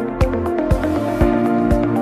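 Background music with a steady beat, about two beats a second, over held electronic chords.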